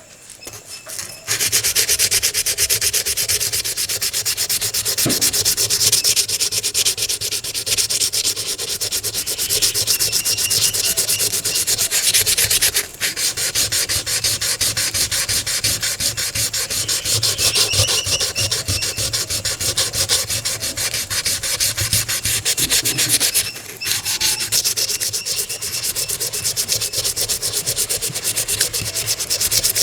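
Hand sanding of a small metal toy-car part: fast back-and-forth scraping strokes, starting about a second in and pausing briefly twice.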